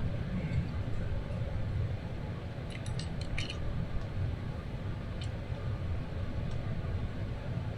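Light metallic clinks of steel bolts being handled and started by hand into a transmission oil pan: a quick cluster about three seconds in, then single clinks later. A steady low rumble runs underneath.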